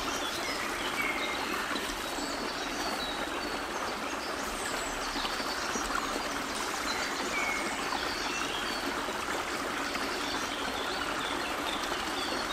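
A small woodland stream running steadily, with many birds singing loudly over it in short chirps and phrases.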